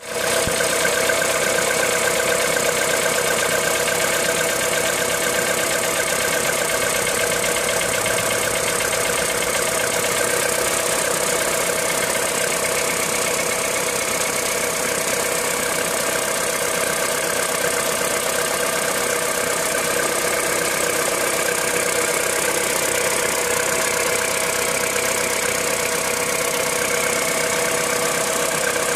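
Car engine idling cold, steady and unchanging, with a mechanical clatter: the cold-start noise that the owner is recording at 65,000 km.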